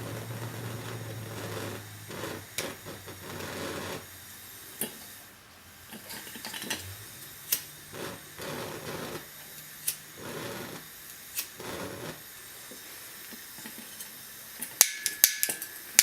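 Small gas torch being handled and clicked to relight it: scattered clicks and knocks, then a fast run of sharp clicks near the end.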